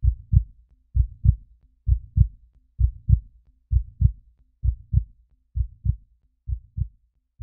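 Heartbeat sound effect: low paired thuds, lub-dub, about one beat every second, steady and slowly fading.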